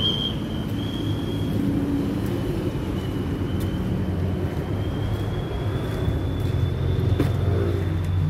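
Diesel truck engine idling with a steady low rumble, with a sharp click about seven seconds in.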